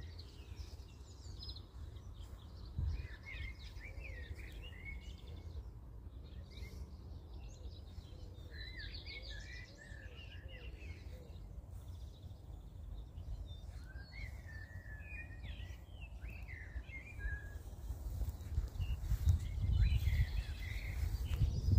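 Songbirds singing and chirping, in short scattered phrases, over a steady low rumble that grows louder in the last few seconds.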